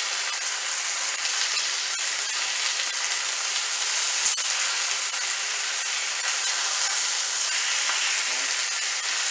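Chicken pieces frying skin-side down in a skillet of hot oil: a steady sizzle, with one sharp click a little over four seconds in.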